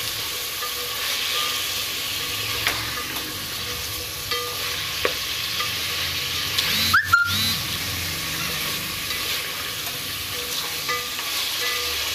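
Meat frying in oil over a high flame in a large aluminium pot, sizzling steadily as it is stirred with a wooden spatula. Occasional scrapes and knocks of the spatula against the pot, with a louder clatter about seven seconds in.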